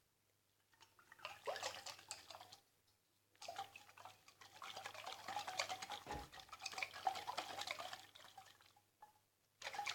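Liquid mixture with olive oil sloshing inside a closed glass jar as it is shaken, in two bouts: a short one about a second in and a longer one from about three and a half seconds until near the end.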